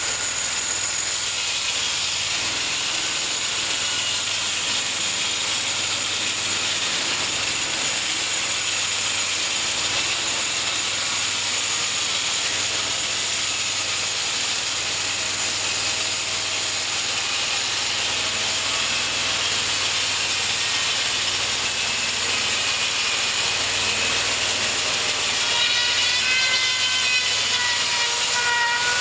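Homemade bandsaw mill running steadily with a whine as it saws through a cherry log; a stronger, wavering whine joins in near the end.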